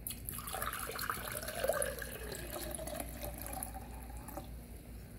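Water poured from a plastic pitcher into a glass mason jar, splashing as the jar fills; the pour tapers off shortly before the end.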